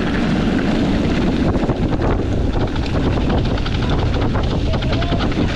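Wind buffeting the microphone while a mountain bike rolls over rough ground, the tyres crunching and the bike rattling with many quick knocks.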